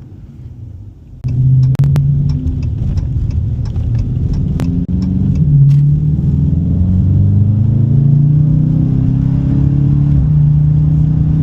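Dodge Challenger R/T's 5.7-litre HEMI V8 accelerating hard from about a second in, its pitch climbing and dropping back at gear shifts, with the intake breathing through a K&N drop-in air filter.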